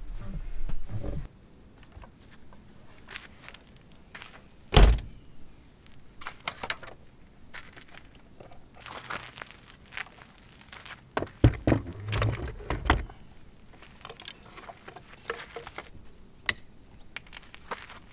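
Wooden door of a home-built camper box on a light truck being shut and its latch worked. There is a single heavy thunk about five seconds in, a cluster of knocks and rattles around twelve seconds in, and lighter clicks in between.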